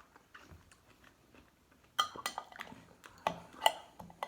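Glass clinking and knocking, as from glass jars handled on a table: several sharp clinks with a short ring, starting about two seconds in.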